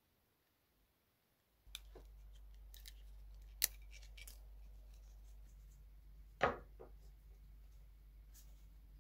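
Birch bark being cut by hand: scattered crisp snips and clicks, two of them much louder near the middle, over a faint steady hum that starts after about a second and a half of silence.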